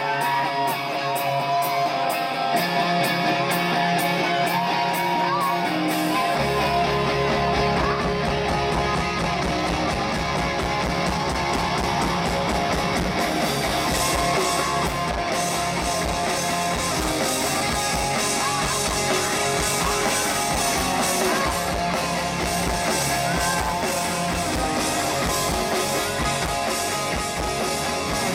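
Live rock band playing a song's instrumental intro: electric guitar with a steady ticking beat at first, then bass guitar and drum kit come in about six seconds in and the full band plays on.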